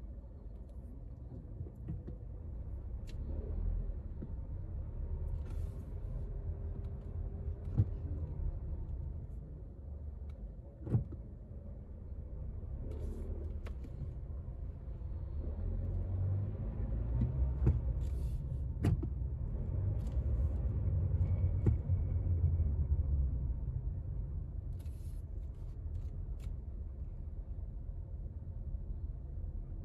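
Low road and engine rumble heard inside a car's cabin while driving in slow traffic. It swells in the middle and eases off toward the end, with a few sharp clicks.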